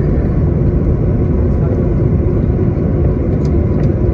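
Steady low rumble of a jet airliner's engines and airframe, heard from inside the cabin as the plane taxis slowly on the ground.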